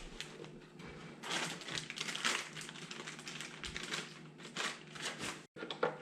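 Plastic packaging and small parts being rummaged through and handled: irregular rustling and crinkling with light clicks and clatter, busiest about a second in and again near the end.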